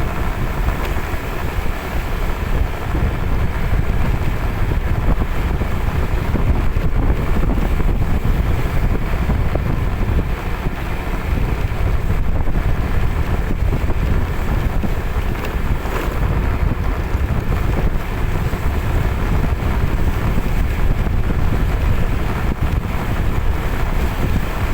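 Steady road and engine noise from a moving vehicle, with heavy wind buffeting on the microphone.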